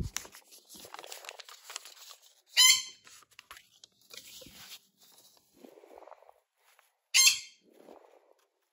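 A bird gives two short, loud, shrill squawks, about two and a half seconds in and again near the end, over soft rustling of a paper note being unfolded and handled.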